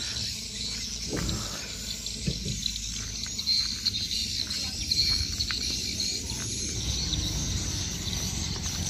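Outdoor ambience: a steady high insect buzz over a low, even rumble.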